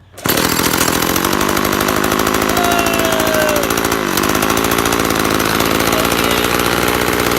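Gas lawn edger's small engine catching about a quarter second in and then running steadily, with a brief dip in speed near the middle: it starts and runs after being repaired with a new spark plug and a new fuel hose.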